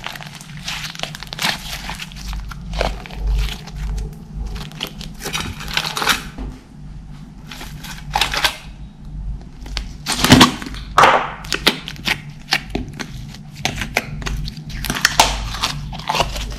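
Glossy slime squeezed and folded by hand, giving irregular wet squelches, pops and crackles, loudest about ten seconds in.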